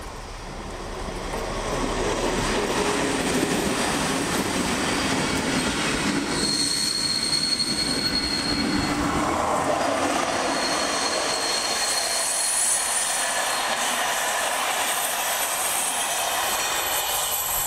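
Trains running through the station at close range: a yellow rail service vehicle hauling an old green coach rolls past, its wheels rumbling over the track. A thin high wheel squeal comes and goes along with it. The sound swells about two seconds in and eases near the end.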